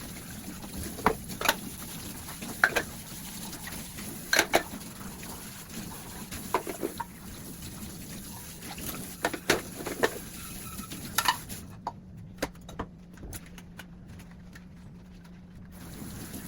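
Washing dishes at a kitchen sink: plates and utensils clink and knock against each other a dozen or so times, with water from the tap.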